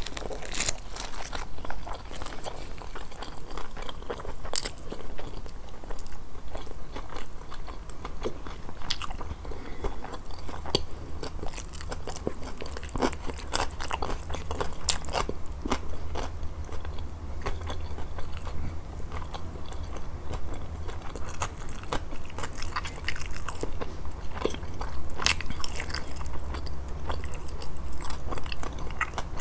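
Close-miked eating of a grilled fish meal: repeated crisp, crunchy bites and chewing, with many short sharp crunches throughout. A steady low hum runs underneath.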